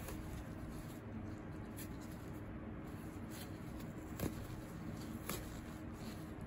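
Gloved hands handling and unrolling a sheet of foam packing wrap: quiet rubbing and scuffing, with a couple of light taps, the sharpest about four seconds in.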